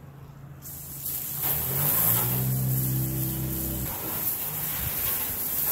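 Garden hose spray nozzle spraying water onto a car, a steady hiss that starts suddenly about a second in. A vehicle engine hums in the background through the middle for about two seconds, then fades out.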